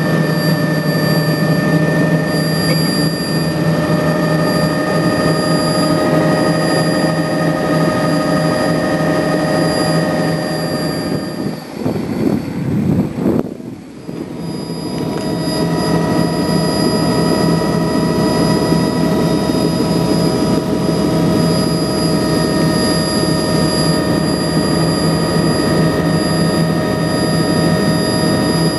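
Bell JetRanger helicopter's turbine engine and rotors in flight, heard from inside the cabin: a steady whine of several tones over a low hum. Near the middle it gives way for about three seconds to a quieter, lower rumble, then returns unchanged.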